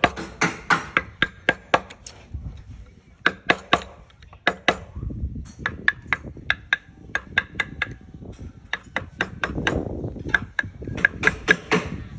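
Wood-carving chisel being struck with a mallet, sharp taps in quick runs of about three or four a second with short pauses between runs.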